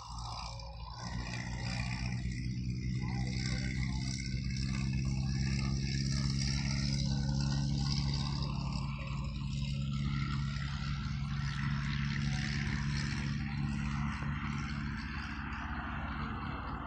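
An engine running with a steady low drone that swells over the first few seconds and then holds, with a hiss over it.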